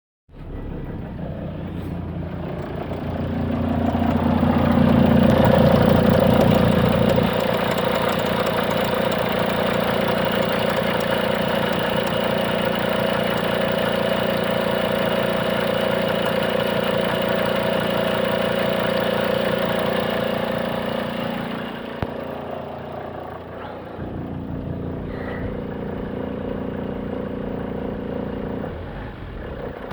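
Volvo XC90 D5 five-cylinder turbodiesel engine running with a steady droning noise carrying several held tones, which the owner puts down to the alternator. It swells louder about four seconds in, eases back after about seven seconds, and drops lower again past twenty seconds.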